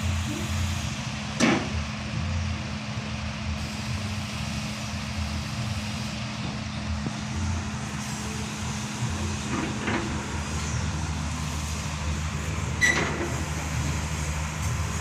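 Diesel engine of a Komatsu PC78US excavator running steadily, with two sharp knocks, one about a second and a half in and another about thirteen seconds in.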